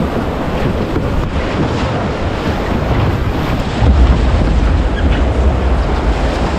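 Rushing whitewater of a river rapid around a canoe running it, with wind buffeting the microphone; a heavier low rumble comes in about four seconds in.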